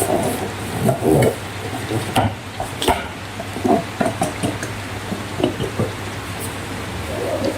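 Slime being handled and mixed, with irregular wet, sticky squishes and a few sharp clicks over a steady low hum.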